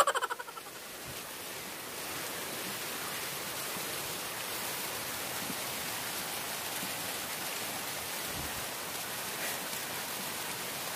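Steady rain falling on the leaves and paddy field, an even hiss that builds over the first two seconds and then holds. A brief voice is heard at the very start.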